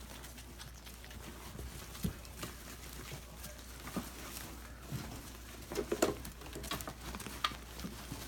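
Puppies shuffling and scrabbling in wood-shaving bedding as they nurse: scattered soft rustles and small clicks, with a brief cluster of louder scuffles about six seconds in.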